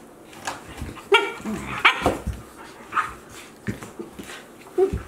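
Akita Inu puppy and young Akita play-fighting: a string of short yips and barks, the loudest about a second in and just before two seconds, with more near the end.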